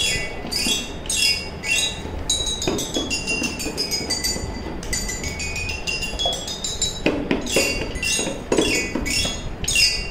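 Toy xylophone with rainbow-coloured bars struck with a mallet, each note ringing bright and high. A few single notes come first. Then a run of notes steps down the scale and climbs back up. Separate strikes follow near the end.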